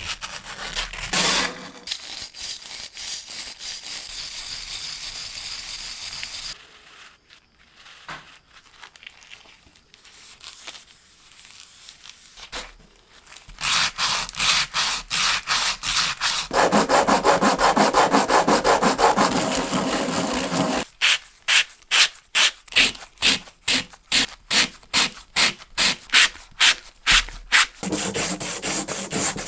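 Sandpaper scrubbing an old hand drill during rust removal and polishing. Long stretches of steady rubbing give way to a quieter spell partway through, then to quick back-and-forth strokes at about two and a half a second near the end.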